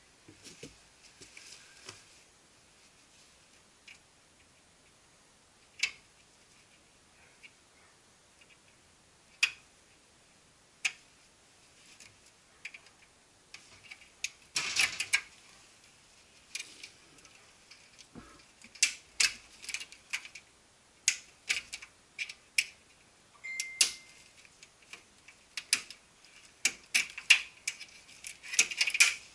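Plastic clicks and short rattles of a copier's wiring harness being handled as its connectors and cable clips are worked free at the power supply board. The clicks are scattered at first and come thick and fast in the second half.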